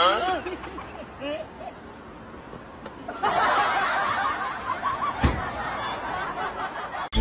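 People laughing: a swell of laughter starts about three seconds in and carries on, with a single sharp knock about two seconds later.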